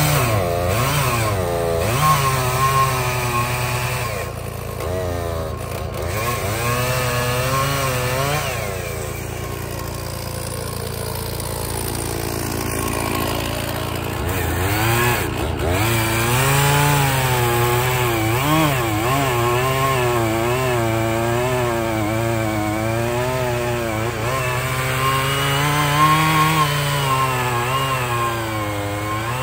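Two-stroke Stihl chainsaw running hard while cutting firewood logs, its engine pitch repeatedly dipping and rising again as the chain bites into the wood and frees up. It steadies and runs a little quieter for a few seconds in the middle, then goes back to loaded cutting.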